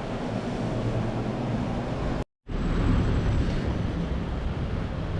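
Steady street traffic noise, a low rumble of passing vehicles. The sound drops out completely for a moment about two seconds in.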